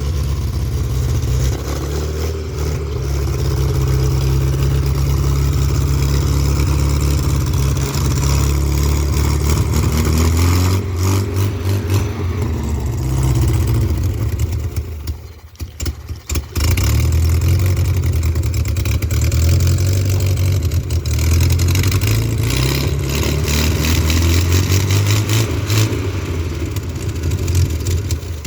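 Toyota 4Y four-cylinder petrol engine running, its revs rising and falling. The sound dips for about a second midway through, then comes back.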